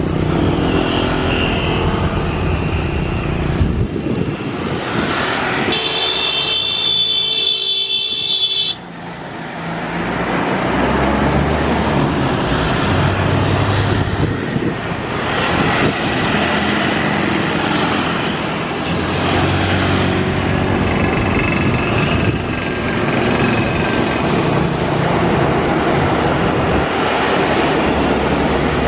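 Road traffic: motor vehicles running and passing continuously. About six seconds in, a high held tone sounds for about three seconds and then cuts off suddenly.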